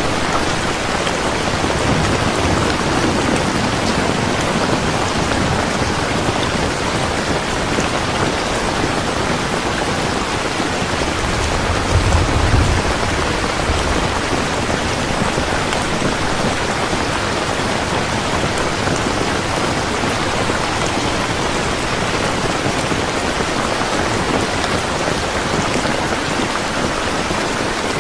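Heavy rain pouring steadily, with a low roll of thunder rising out of it about twelve seconds in and a fainter rumble near the start.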